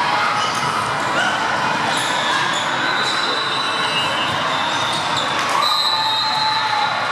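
Busy gym hall ambience: many voices talking at once, with volleyballs bouncing on the hardwood floor and short high squeaks, typical of athletic shoes on the court.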